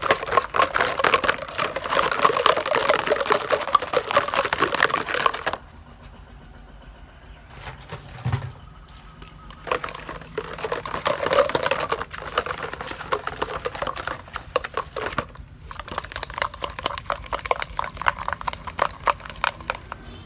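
Hand-washing of milk bottles and utensils: a dense crackly scrubbing that stops about five seconds in and starts again about ten seconds in, with a dull thump in the pause.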